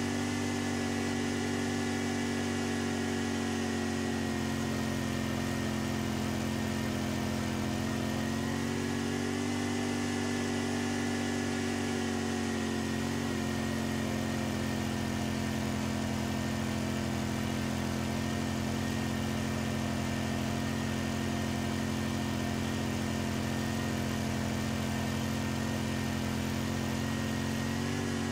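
Snowblower engine running steadily under load while it cuts through deep snow and throws it out of the chute. Its note wavers slightly in pitch a couple of times.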